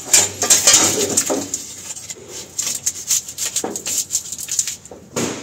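Wiring being handled in a steel seat box: rustling and scraping of a plastic corrugated conduit and wires dragged over metal, with irregular clicks and knocks, busiest in the first couple of seconds and with a last scrape near the end.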